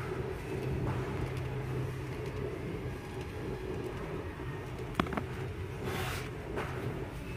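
Steady low hum of shop background noise, with a sharp click about five seconds in and a brief rustle about a second later as a paperback picture book is handled and put back into a display bin.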